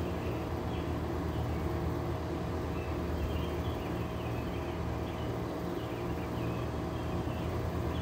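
Window air conditioner running steadily: compressor hum under the rush of its fans.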